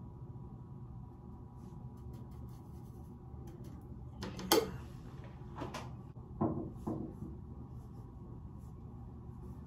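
A few sharp clicks and clacks of makeup items being handled, about four within three seconds a little under halfway through, the first the loudest, over a faint steady hum.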